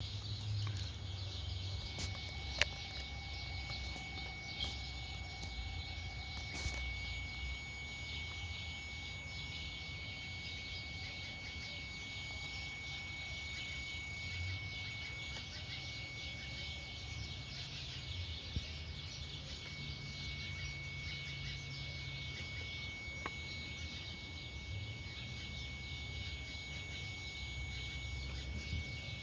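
Unidentified steady high-pitched whine from a 2013 Chevrolet Malibu, holding one even pitch, over a low rumble and a faint crackling hiss. A sharp click comes about two and a half seconds in.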